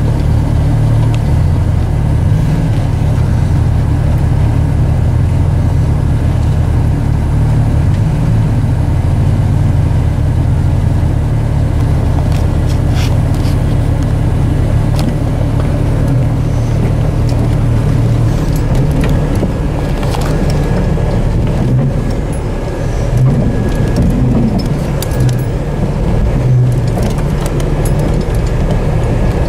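Off-road Jeep engine running steadily at low revs. The low drone turns rougher and less even in the second half, with scattered clicks and knocks.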